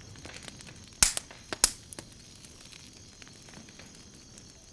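Campfire crackling, with a few sharp pops in quick succession about one to two seconds in over a low steady hiss.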